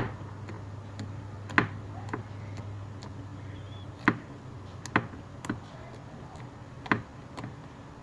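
Glossy slime being pressed and folded by hand, giving off sharp clicking pops at irregular intervals, about eight of them, over a faint steady low hum.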